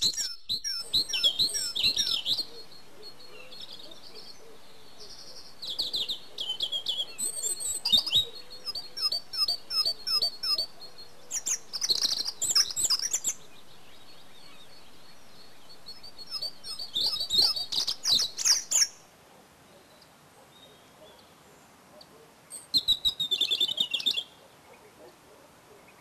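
Songbirds singing: bursts of high chirps and quick trilled phrases with short pauses between them. The song drops away after about nineteen seconds, and one more short burst comes near the end.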